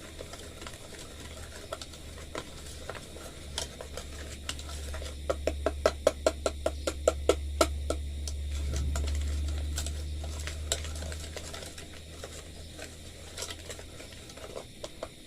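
Hand-mixing a thick batter of egg, sugar and cornstarch in a bowl: the utensil knocks against the bowl in scattered taps, then in a fast, even run of about five strokes a second midway through. A low steady hum runs underneath.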